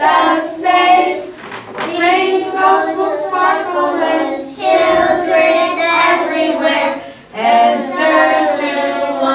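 A group of young preschool children singing a song together, in phrases with short breaks between them.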